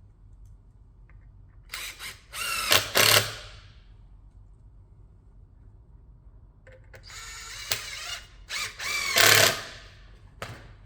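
Power drill-driver driving 30mm PZ2 screws into the shelf's pre-drilled holes, in two runs of a second or three each, its pitch bending up and then dropping away as each screw goes in.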